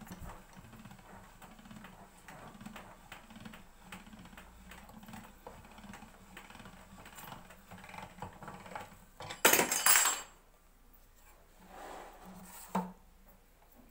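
Hand-cranked stainless-steel pasta machine rolling out sheets of dough, its crank and rollers making a steady repeating rumble with light clicks. About nine and a half seconds in there is a loud clatter lasting under a second, and a sharp knock near the end.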